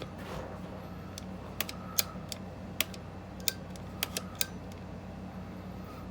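Sharp little clicks and taps of a Daisy Powerline 426 BB pistol's plastic and metal parts being handled and fitted together, about eight of them in the middle few seconds. A low steady hum runs underneath.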